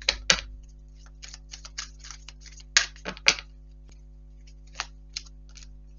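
Tarot cards being shuffled and handled by hand: a run of short papery swishes at an irregular pace, with a few sharper snaps of cards, the loudest about a third of the way through. A faint steady electrical hum sits underneath.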